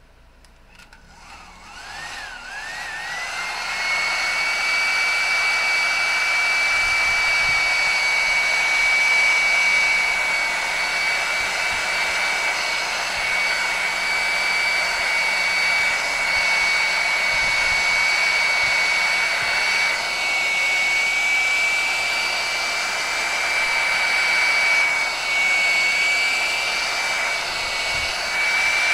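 Hot-air blower switched on: its fan motor spins up with a rising whine over the first few seconds, then blows steadily with a constant high whine while heating heat shrink tubing to shrink it onto a handle.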